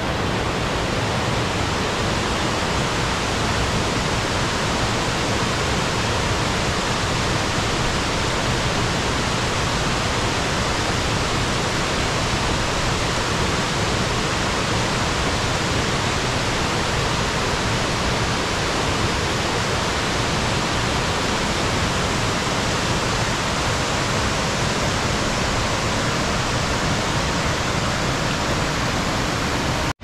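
Waterfall: water falling and rushing steadily, an even, unbroken noise from deep to high pitches.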